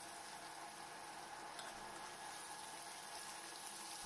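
Masala-coated prawns sizzling steadily in hot coconut oil in a pan as a spoon turns them over.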